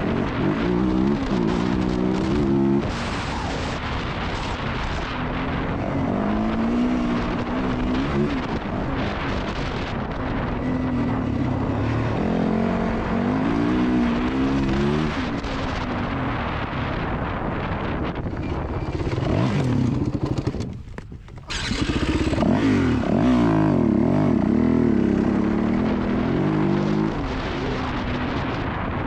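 Yamaha WR450F dirt bike's single-cylinder four-stroke engine revving hard and pulling up through the gears at race pace, pitch climbing and falling again several times. Near the end the sound drops away for about a second as the throttle closes, then the engine pulls again.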